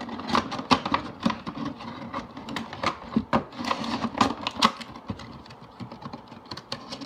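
A Funko Pop's cardboard box and clear plastic insert being handled: a dense, irregular run of crinkles, taps and clicks.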